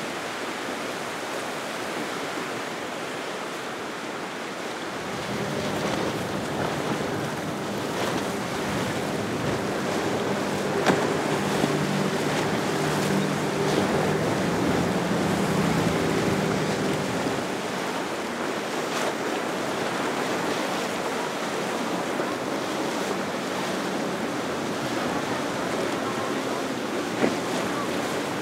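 Steady surf and wind noise on the microphone, with a Yamaha AR190 jet boat's engine droning as it runs through the inlet. The drone comes in about five seconds in, is loudest near the middle and eases off after about eighteen seconds.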